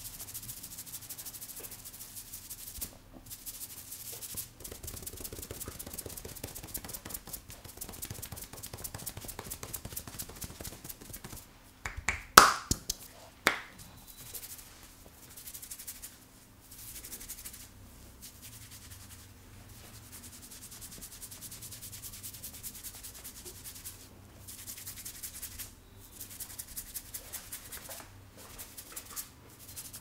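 Fingers rubbing and scratching through long hair on the scalp during a head massage: a dense fine rustling with short pauses. About twelve seconds in comes a quick run of three or four sharp cracks, the loudest sounds here.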